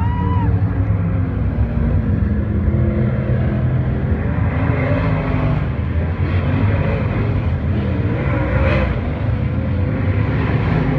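Dirt-track race car engines running loud during hot laps, the pitch rising and falling as the cars circle the oval.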